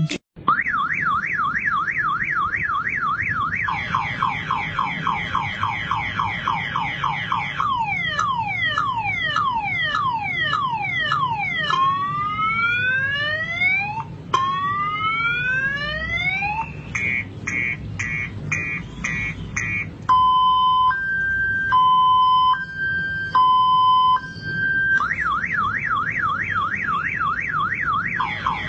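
Electronic vehicle alarm siren cycling through its tone patterns: a fast warble, then repeated falling sweeps and two slow rising whoops, rapid beeping, a two-note hi-lo, and back to the warble near the end.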